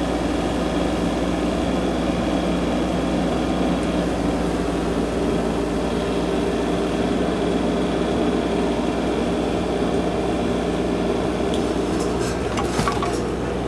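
Compact excavator's diesel engine running steadily at an even speed, with a few light knocks near the end.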